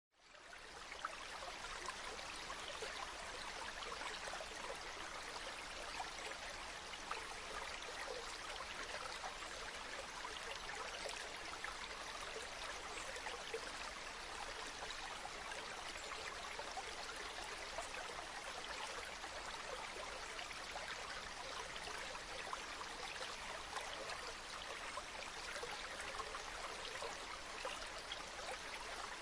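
Stream or small river running over rocks: steady rushing and babbling water, fading in over the first second.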